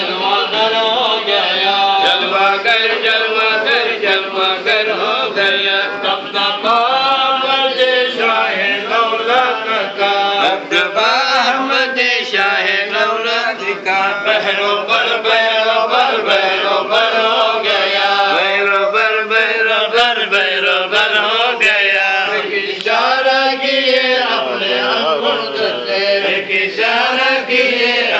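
A group of men chanting an Islamic devotional chant together, one continuous melodic line with no pauses.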